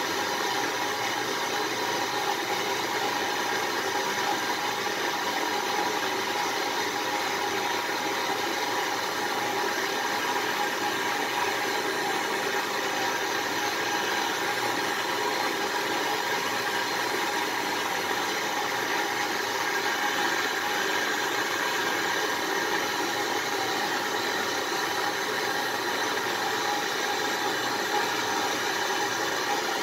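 Handheld gas-canister blowtorch flame hissing steadily, played on a clay crucible to melt silver.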